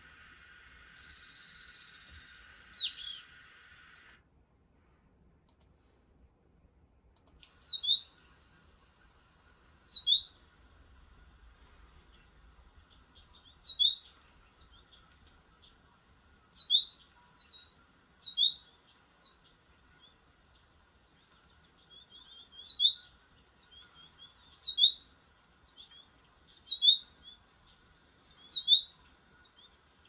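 American goldfinch calling: sharp, short, high chirps that fall in pitch, mostly in pairs, repeated about every two seconds. Before them, a brief stretch of hiss with one evening grosbeak call ends about four seconds in, followed by a few seconds of near silence.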